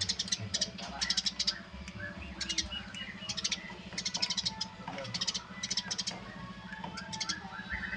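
Eurasian tree sparrows chirping in rapid bursts of high, repeated notes, one cluster after another about every second.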